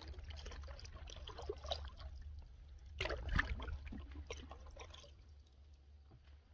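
Wooden canoe paddle stroking through the water: water trickling and dripping off the blade, with a louder splash about three seconds in. The strokes die away after about five seconds, over a low steady rumble.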